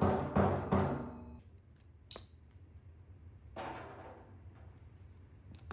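Hammer blows on a hollow 16-gauge sheet-metal gas tank along its welded seam, knocking slag off the weld bead: about three ringing strikes roughly a third of a second apart in the first second, the ring dying away soon after. A light click and a short scrape follow a few seconds later.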